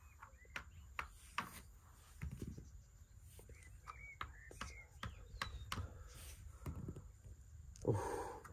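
Quiet, irregular light clicks and taps of Mensch ärgere dich nicht game pieces and a die being handled on the board.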